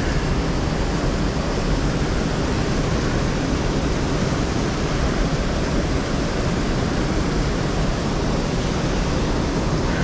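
Steady rushing noise of flowing river water, an even hiss and rumble that holds level throughout.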